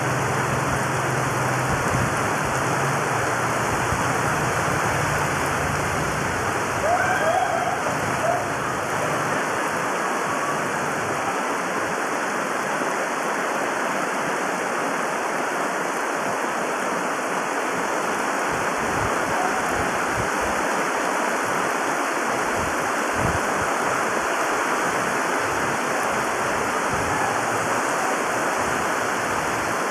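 Heavy tropical rain pouring onto a flooded street, a dense, steady hiss of rain striking water-covered road over water running across the surface. A low hum sits underneath for the first six seconds or so, and a brief slightly louder sound comes about seven seconds in.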